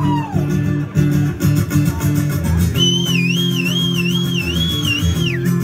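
Live rock band playing, electric guitar chords ringing out over bass. About three seconds in, a high whistle-like tone wavers up and down above the band for a couple of seconds, then drops away.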